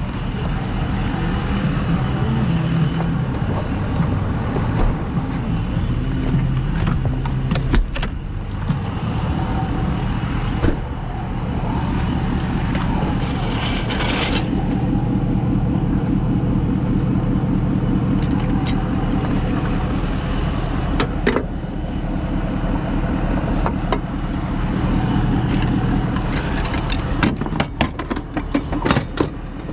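Vehicle engine idling steadily, with scattered clicks and knocks.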